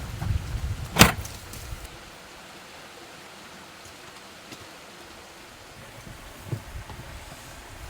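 Wind buffeting the microphone, with a single sharp knock about a second in, then a steady faint hiss and a softer knock near the end.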